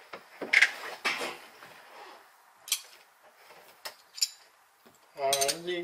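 A wrench and other metal hand tools clinking and knocking together: two louder clanks about half a second to a second in, then a few scattered lighter clinks. A brief voice sounds near the end.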